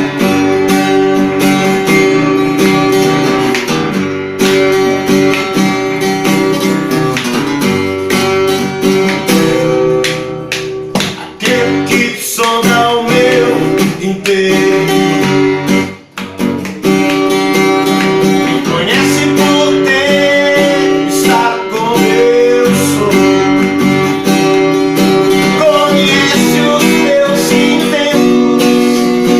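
Acoustic guitar strummed steadily with a melody line bending above the chords, played live as a song. There is a brief break in the playing a little past halfway.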